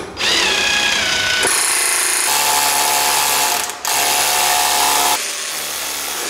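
Hilti drill spinning up with a rising whine and boring through a mounting hole of a plastic electrical enclosure into the wooden backing behind it. It stops briefly about four seconds in, starts again, and runs more lightly near the end.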